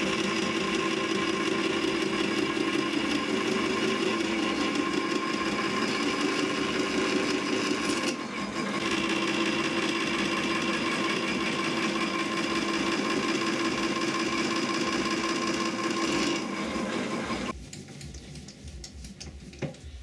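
Small lathe running steadily under power, with a brief dip about eight seconds in; it shuts off about seventeen seconds in.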